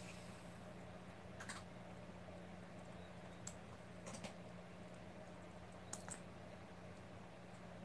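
A few faint, scattered clicks and soft rustles of jacket fabric as a kitten shifts about inside a zipped jacket, over a low steady room hum.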